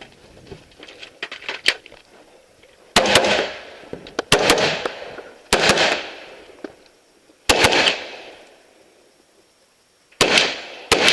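AR-15 rifle in .223/5.56 fired in quick double taps, about six pairs of sharp shots starting about three seconds in, each followed by a fading echo. Before the first shots there is light clicking and rattling of gear.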